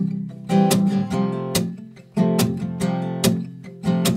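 Steel-string acoustic guitar played in a country-style alternating bass rhythm: a plucked bass note followed by quick down-up strums, with hammer-ons onto the open G string. A new chord is struck about halfway through.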